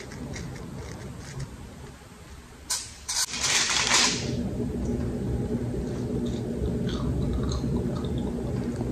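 Aluminium foil crinkling under the fingers as soft cloud bread is pulled apart on it, in one rustling burst of about a second and a half some three seconds in, over a low steady hum.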